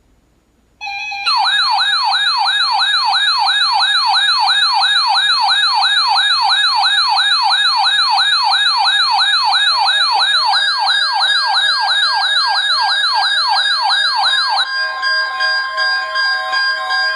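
Electronic siren wailing rapidly up and down, about two to three sweeps a second, layered with steady high alert tones, starting suddenly about a second in. Near the end the sweeping stops and gives way to steady and pulsing alert tones.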